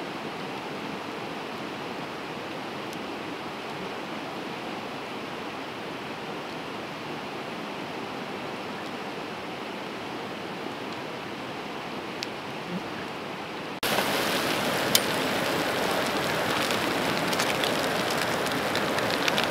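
Steady rushing of a creek. About 14 s in it cuts to a louder, crackly hiss of a butane camp stove burner with the soup sizzling in the pot, and a few sharp clicks.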